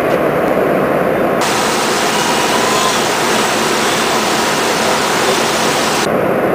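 Steady running noise of an ANCA SBG CNC tool grinder and its robot loading cell. A louder, hissing noise starts abruptly about a second and a half in and cuts off just as suddenly about six seconds in.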